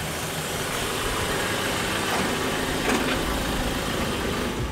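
Land Rover Defender's engine running steadily as it drives up and comes to a stop, with street noise around it.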